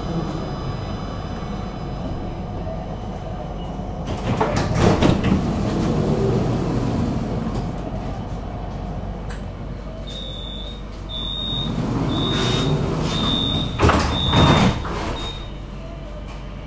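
Tram at a stop: the door-closing warning sounds as about six short, high beeps roughly a second apart, and the sliding doors shut loudly near the end of the beeping. A loud burst of noise about four seconds in comes before it.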